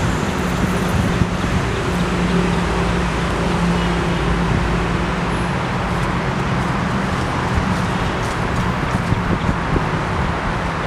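Steady road traffic noise, a constant rumble and hiss with a low hum underneath.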